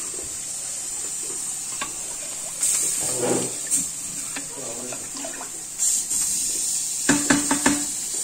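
Pakoras deep-frying in hot oil in a wok: a steady high sizzle that swells a few times. A quick run of sharp clicks and knocks near the end.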